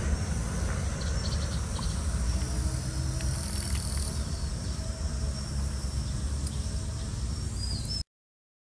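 Outdoor ambience: steady wind rumble on a phone microphone, with faint insects and a short bird-like chirp near the end. The sound cuts off abruptly about eight seconds in.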